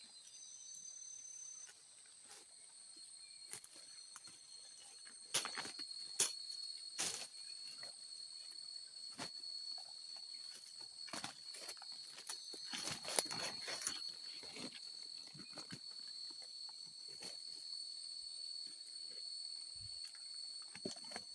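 Steady high-pitched drone of forest insects, two held tones, with scattered sharp knocks and rustles, the loudest a quarter to a third of the way in and again just past the middle.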